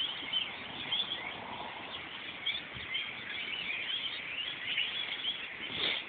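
A large flock of birds chirping and chattering, many short high calls overlapping without a break.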